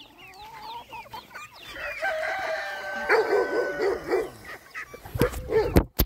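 A free-range flock of chickens clucking, with a rooster crowing in the middle. A few loud knocks come near the end.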